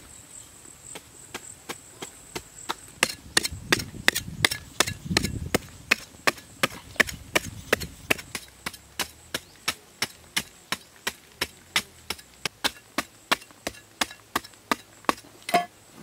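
A hand digging tool chopping into hard, dry, stony soil in a steady rhythm of about two to three blows a second, soft at first and then sharp and loud from about three seconds in.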